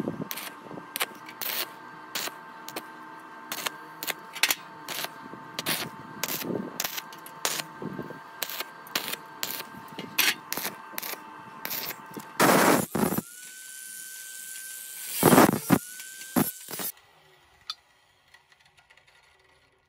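Stick-welding arc tacking square steel tubing: a quick irregular series of short, sharp crackles over a steady high whine. Near the end come two longer, louder runs of arc crackle.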